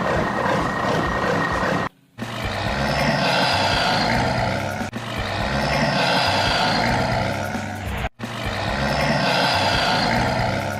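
Vehicle engine sound effect running steadily, with brief drop-outs about two seconds and eight seconds in.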